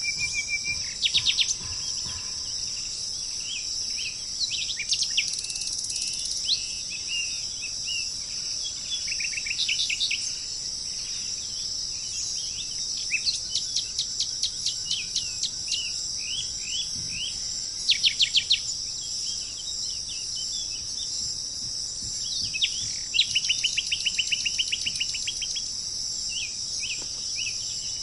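Birds chirping in quick repeated series of short high notes, several bursts over a steady high-pitched hiss.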